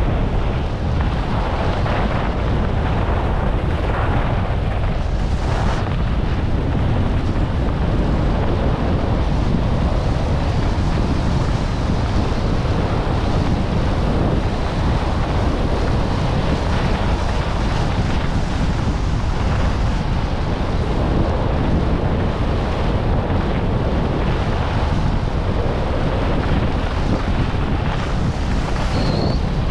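Wind rushing over a GoPro action camera's microphone at skiing speed, a steady low buffeting, with the hiss of skis sliding over packed snow underneath.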